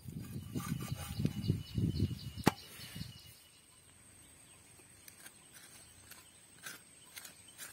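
Hands patting and pressing roti dough flat on a clay pan, a run of soft, dull pats for about three seconds with one sharp click near the end. Then quieter, with faint scraping and small ticks of a knife spreading chili sambol on a cooked roti.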